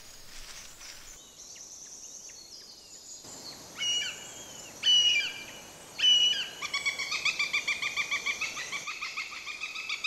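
Northern goshawk calls at the nest: three short, separate calls about a second apart, then a rapid, even series of repeated calls, about five a second, through the last third.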